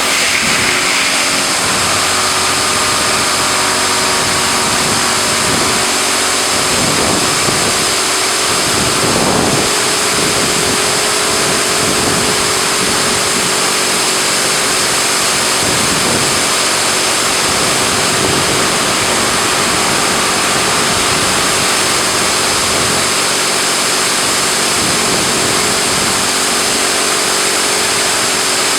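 Touchless car wash machine in its wash cycle: high-pressure water jets spraying a car in a steady loud hiss, with the constant hum of the pump motor underneath.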